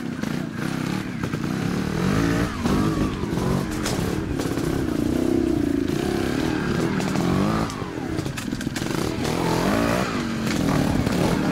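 Trials motorcycle engine, its revs rising and falling again and again in short throttle bursts, held up for a couple of seconds in the middle, with scattered clicks and clatter.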